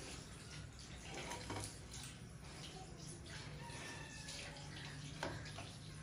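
Faint water spraying from a handheld shower sprayer onto a wet husky's fur, with scattered small splashes and drips.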